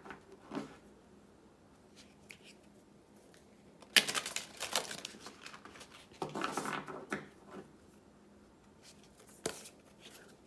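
A deck of oracle cards being shuffled by hand, in short bursts of cards sliding and slapping together with pauses between. The biggest bursts come about four seconds in and again around six to seven seconds.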